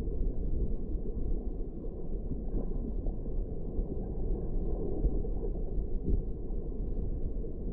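Muffled underwater rumble of moving seawater picked up by a submerged action camera in its waterproof housing, steady and low, with faint crackling over it.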